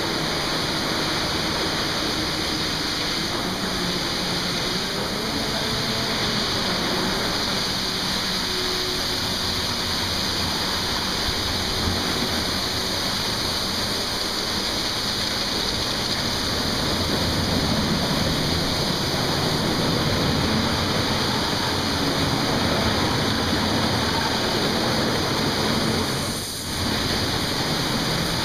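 Automatic car wash spraying water and foam onto a car: a steady, loud hiss of spray jets, with a low hum of wash machinery underneath. The hiss dips briefly near the end.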